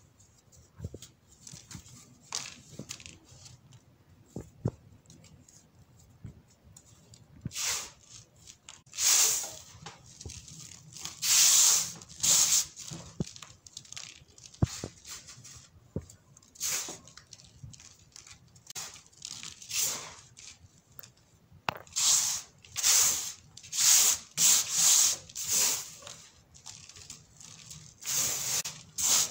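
Fingers crushing and raking a pile of sandy baking soda crumbles, a dry gritty rustle. Faint scattered ticks at first, then a run of separate hissing crunches that comes quicker and louder toward the end.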